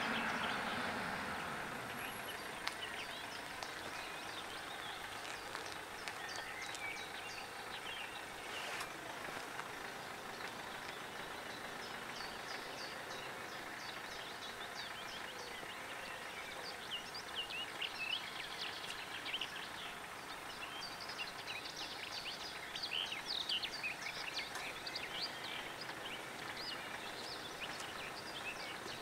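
A passing train's rumble fades away over the first two seconds. After that, birds sing: many short, irregular chirps over a steady background hiss.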